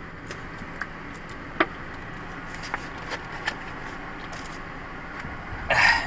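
A plastic gallon water jug drunk from and set down inside a car cabin: a few faint clicks and knocks, then a short rustling burst near the end, over a steady low cabin hum.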